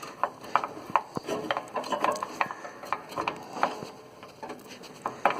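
Hands handling and fitting small parts of a riding mower's blade engagement linkage: irregular light clicks, taps and rubbing, a few sharp knocks.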